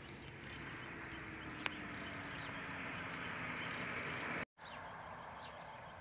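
A vehicle passing on a road: a steady rushing that swells over about four seconds, with a faint engine hum falling slowly in pitch. The sound drops out for an instant about four and a half seconds in.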